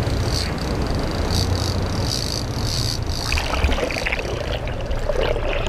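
Boat engine running with water rushing past the hull. A high whine comes and goes in pulses for the first three seconds, then stops, and the sound changes.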